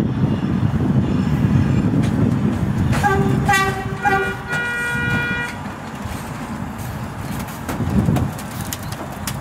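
New York City Subway R142 train rolling into an elevated station, its wheels rumbling on the track. About three seconds in it sounds its horn as a salute, a few short toots and then a steadier blast, lasting about two and a half seconds, before the rumble eases off.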